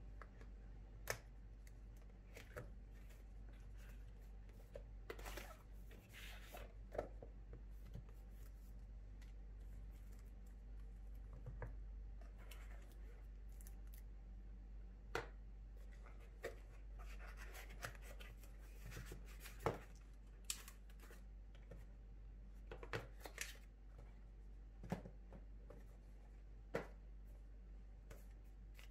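Faint handling of a cardboard box and packaging: soft rustles and scattered sharp clicks and taps as the box is opened and the parts are lifted out and set on the table, over a steady low hum.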